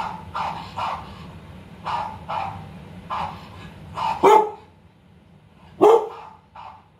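Recorded dog barks playing from a laptop speaker, in quick pairs about every second. About four and six seconds in come two single, much louder barks from the dog in the room, which is reacting to the recording.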